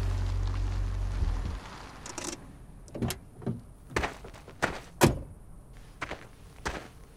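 A low steady drone fades out in the first second and a half. Then a brief swish, followed by boot footsteps on hard ground, about one step every half second, the loudest about five seconds in.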